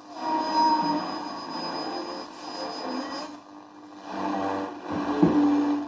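Radio receiver's loudspeaker output as the RF tuner's variable capacitor is turned: hiss and static with short snatches of a broadcast station coming and going. The level dips about halfway through and rises again near the end.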